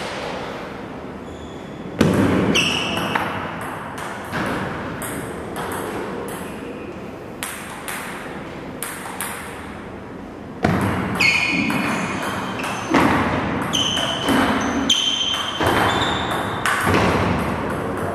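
Table tennis ball being played in rallies, clicking off the paddles and pinging on the table with an echo. The hits are sparse at first and come thicker from about ten seconds in.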